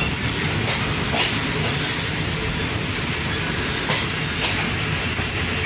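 Passenger train running along the line: a steady rumble and hiss, with a few faint clacks from the wheels.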